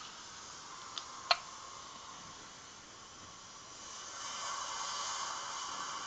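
Sea-wave sound as a steady hiss that swells about four seconds in, with one sharp hiccup a little over a second in.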